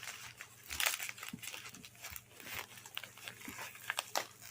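Packaging being handled: irregular crinkling and rustling of plastic and paper wrap with a few light clicks and knocks, the loudest rustle about a second in.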